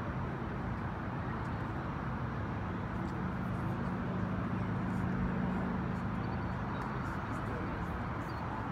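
Steady low rumble of distant city traffic, with a low engine hum that holds for a few seconds in the middle; no distinct firework bangs stand out.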